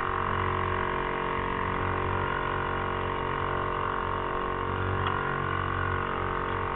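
Small outboard motor pushing a sailing trimaran along, running at a constant speed with an even drone that does not change.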